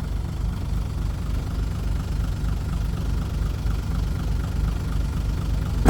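Heavy diesel engine idling, a steady low rumble with a faint, even ticking over it. A single sharp click comes at the very end.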